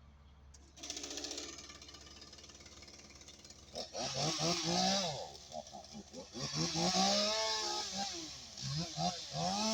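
Chainsaw starting up about a second in, then revving hard from about four seconds on, its pitch repeatedly rising and falling as it cuts into the tree.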